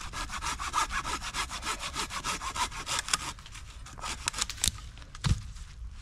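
Hand saw cutting through a pine trunk with quick back-and-forth strokes, steady for about three seconds, then slowing to a few scattered strokes. A heavy thud comes about five seconds in.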